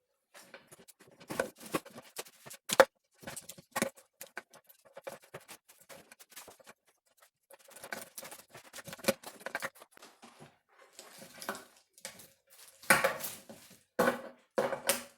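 Irregular rustling, scraping and clicking of a car engine wiring harness being handled, as loose wires and plastic loom are pulled and rubbed against each other. There are a few louder clatters near the end.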